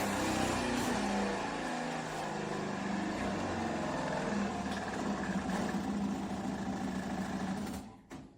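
A motor running steadily with a low hum, cutting off suddenly near the end.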